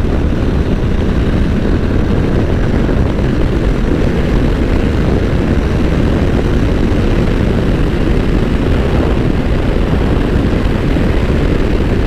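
A Honda NC750X motorcycle at steady cruising speed on the highway: a constant rush of wind over the microphone mixed with the low drone of its parallel-twin engine.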